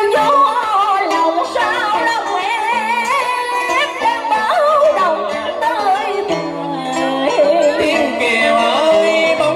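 Vietnamese tân cổ vọng cổ music: a woman singing a wavering, ornamented line with vibrato into a microphone over steady instrumental accompaniment.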